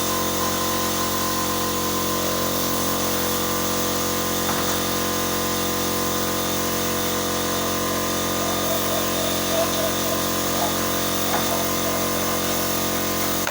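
An electric motor running steadily at constant speed: a continuous hum made of several fixed tones that does not rise or fall.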